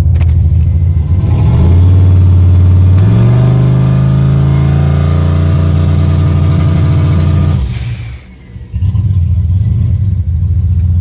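Turbocharged LS V8 in a Ford Crown Victoria, heard from inside the cabin. It idles, then revs up about a second and a half in while standing still on the transbrake. It holds at the two-step rev limiter near 3,600 RPM for about four or five seconds, then the throttle is released and it drops back to idle.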